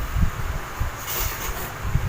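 Low, uneven rumbling background noise with a few soft thumps, and a short hiss about a second in.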